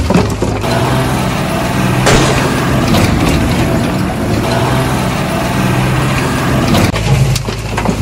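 A truck engine running steadily at idle. Loose soil pours and patters from a tipping dump bed near the start and again near the end.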